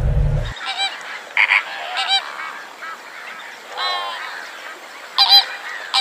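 Flamingos honking: about five short calls spread irregularly over several seconds, some in quick pairs.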